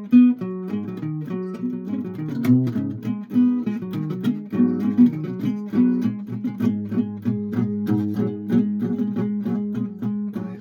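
Guitar being played: a continuous run of plucked notes.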